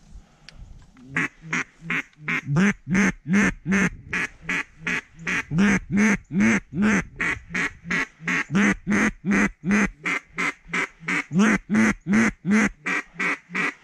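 Duck quacks in a long, steady, evenly spaced series, about three a second, starting about a second in and going on without a break.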